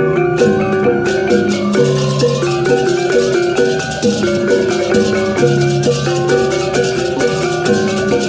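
Balinese baleganjur gamelan playing processional music: bronze gongs and kettle gongs ring in a fast repeating pattern over a low gong tone that recurs every few seconds, with hand cymbals (cengceng) clashing throughout.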